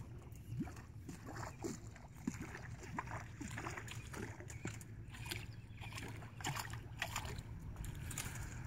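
Fly line being stripped in by hand in quick, irregular pulls, each a short sharp rasp, while a floating Rainy's PSP Bubble-Head fly is worked hard across the surface with small plops and gurgles.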